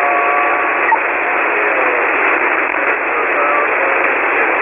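Shortwave ham radio receiver on 40-metre single sideband: a steady wash of static, with a weak, barely readable voice buried in it.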